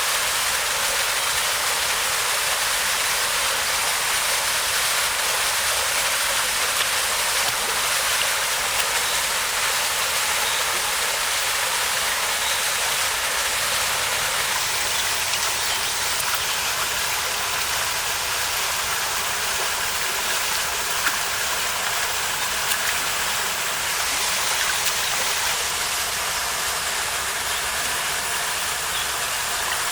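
Small waterfall rushing steadily over rocks into a pool.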